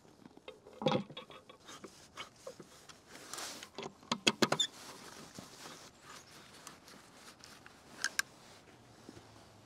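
Scattered metal clicks and knocks as the Aviat WTM 4800 E-band radio is handled and fitted onto the back of the antenna. They are loudest in a quick cluster about four seconds in, just after a brief scrape.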